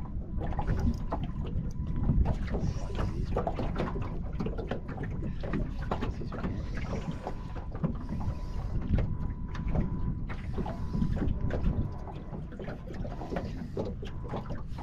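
Small choppy waves slapping and knocking against the hull of a small boat, over a steady low rumble of wind and water.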